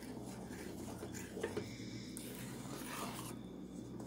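Wooden spoon stirring a thick caramel mixture in a stainless steel saucepan: faint, irregular scraping and rubbing of the spoon against the pot.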